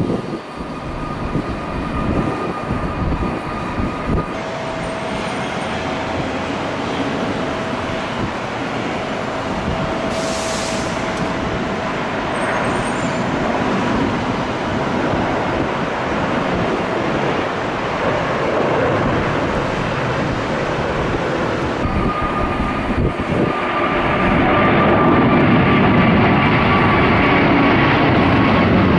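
Airbus A380 turbofan jet engines running: a continuous rushing noise with steady whining tones over it. The sound changes abruptly twice, about four seconds in and about 22 seconds in, and grows louder near the end.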